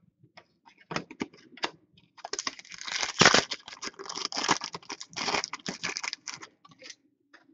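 A few light clicks, then about four seconds of crinkling and tearing as the foil wrapper of a 2014-15 Upper Deck Ice hockey card pack is ripped open and the cards are pulled out.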